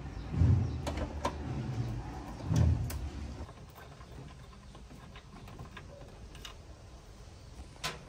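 Tool work on a washing machine's motor bracket: a few sharp metallic clicks and low knocks from a wrench and hands on the bolt and plastic motor guard, then quieter handling after about three seconds, with one more click near the end.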